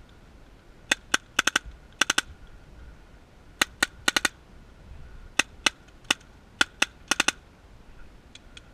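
Paintball markers firing, sharp pops coming singly and in quick strings of three, about twenty shots in all, with a couple of fainter shots from farther off near the end.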